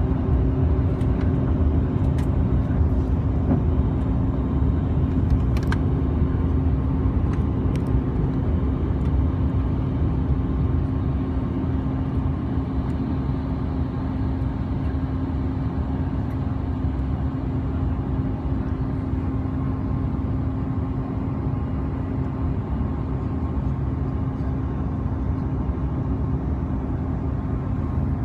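Cabin noise of a CRJ-700 regional jet taking off and climbing: its rear-mounted turbofans run at high thrust with a steady hum over a deep rumble. The rumble and one of the hums fade in the first seconds as the jet leaves the runway, and the noise eases slowly through the climb.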